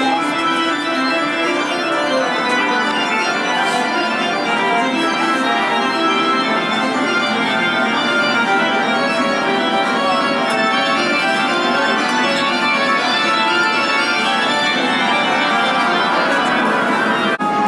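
Organ music: dense, sustained chords held at an even level.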